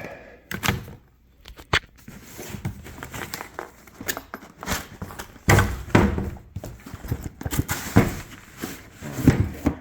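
Cardboard box being opened and its contents handled by hand: irregular rustling and scraping with several sharp knocks.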